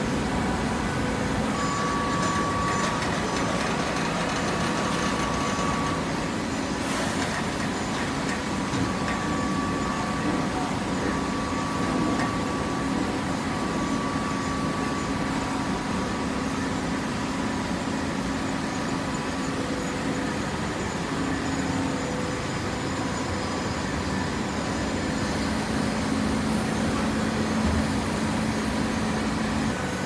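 Automatic horizontal hydraulic baler running: a steady machine hum with a few held tones that fade in and out.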